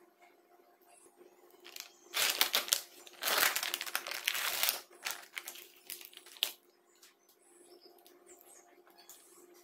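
Plastic fish packaging crinkling as the printed sleeve is pulled off a plastic tray: about three seconds of loud crinkling, then a few lighter crackles.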